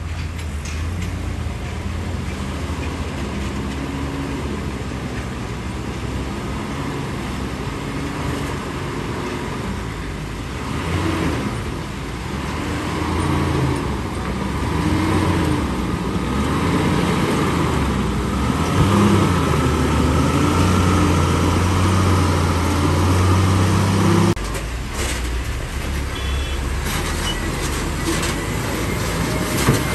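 Heavy Tata tipper trucks' diesel engines working as the trucks pull through deep mud. The engine sound grows louder from about halfway in as a truck comes closer, then drops suddenly a few seconds before the end.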